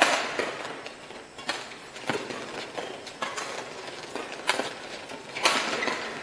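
Doubles badminton rally: rackets striking a shuttlecock, about six sharp cracks roughly a second apart, each with a short echo in a large hall.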